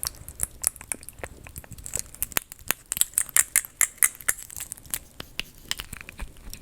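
Rapid, irregular close-up tapping and crinkly scratching on handheld ASMR props, many small sharp clicks a second, busiest in the middle.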